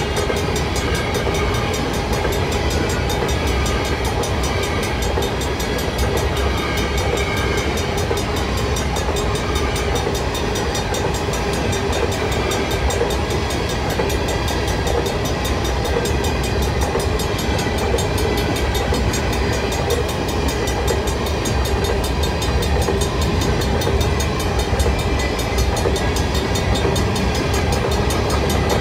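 Freight train of covered potash hopper cars rolling past, a steady rumble of steel wheels on the rails with faint steady ringing tones over it.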